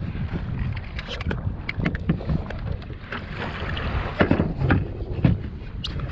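Wind buffeting the microphone of a head-mounted camera on a kayak at sea, a steady low rumble, with a run of knocks and taps from handling on the kayak; the loudest knocks come about four to five seconds in.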